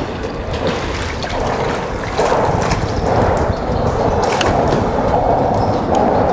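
Lake water lapping and sloshing against a boat's hull, a continuous wash that grows louder about two seconds in.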